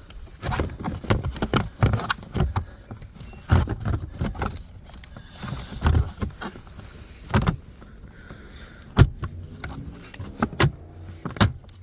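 Plastic interior trim panel being handled and lined back into place: irregular knocks, taps and clicks, with one sharp click about nine seconds in.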